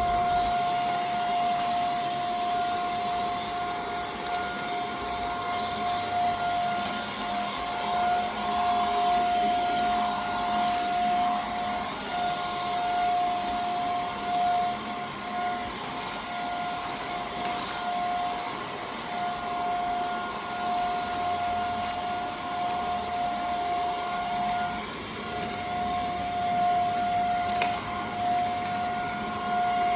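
Xiaomi Mi Vacuum Cleaner Light (MJWXCQ03DY) stick vacuum running, a steady motor whine over rushing air.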